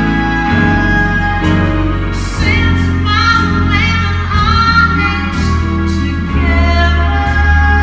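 A woman singing a slow ballad live, with long held notes that waver in vibrato, over a steady low instrumental accompaniment.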